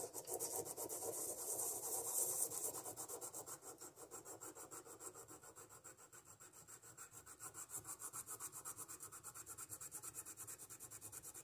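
Engine valve stem end being rubbed back and forth on roughly 220-grit sandpaper laid on a flat bed, a run of quick scratchy strokes about five a second. The sanding takes metal off the stem end to set the valve-to-lifter clearance.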